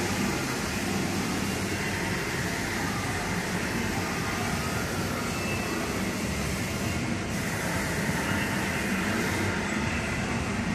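Steady mechanical din of a spinning kiddie airplane ride and the noisy indoor amusement hall around it, even throughout with no pauses.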